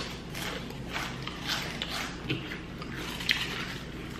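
Potato chips crunching as two people bite and chew them fast: a quick, uneven series of crunches.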